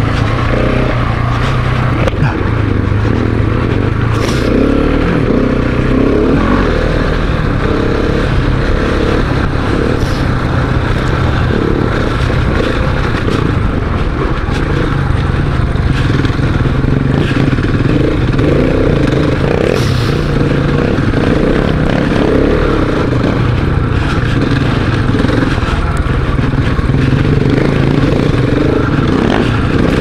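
Single-cylinder dual-sport motorcycle engine running under way on a dirt forest road, its pitch shifting with the throttle, over a steady rush of noise, with a few sharp clicks.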